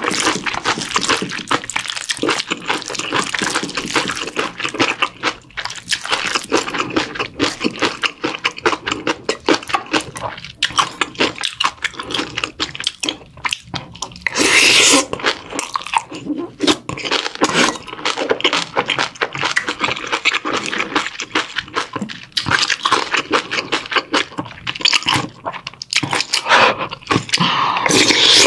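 Close-miked chewing of a mouthful of bibimbap with crunchy fresh radish salad and young-radish kimchi: rapid wet crunching and mouth clicks. A louder burst comes about halfway, as another spoonful goes in.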